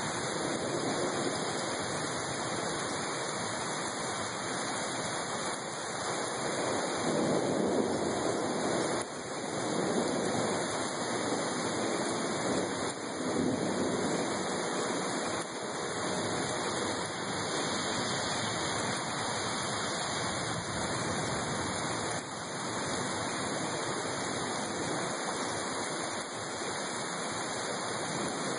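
Heavy rain falling steadily, swelling louder a couple of times near the middle.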